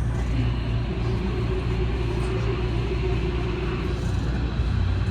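Fukuoka City Subway Airport Line train running through the tunnel, heard from inside the car: a steady low rumble with a hum that holds through the first three seconds or so.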